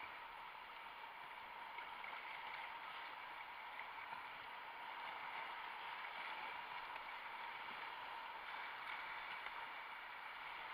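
Whitewater rapids rushing steadily around a kayak being paddled through them.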